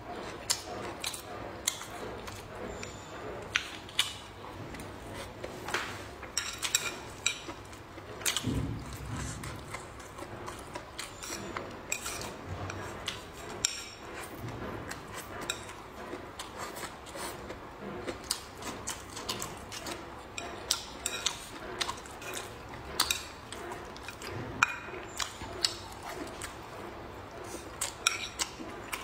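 Close-up eating sounds: slurping and chewing mouthfuls of food, with frequent light clicks of chopsticks against the bowl. A low dull thud about nine seconds in.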